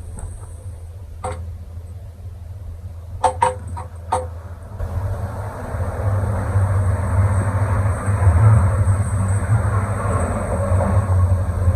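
A few sharp knocks and clicks over a low hum, then from about five seconds in a steady, louder low mechanical rumble with a hiss over it.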